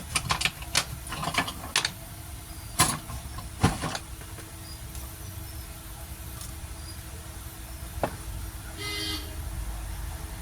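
Light, sharp clicks and taps of small hand tools on a phone's circuit board, seven or so in the first four seconds, then a faint steady hum. A brief horn-like toot about nine seconds in.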